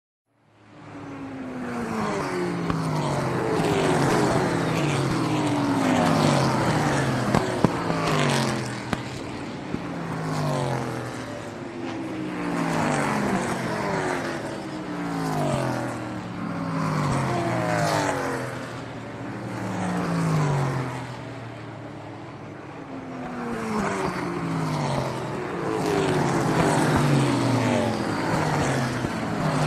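Race cars passing by one after another, each engine's pitch falling as it goes past, a new pass every couple of seconds, with the overall loudness swelling and fading.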